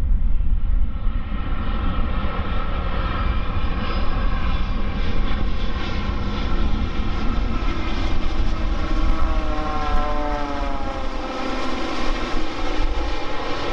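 Boeing 787-9 jet airliner flying past low on final approach, its turbofan engines whining over a deep rumble. The engine tones slide down in pitch as it goes by, about ten seconds in.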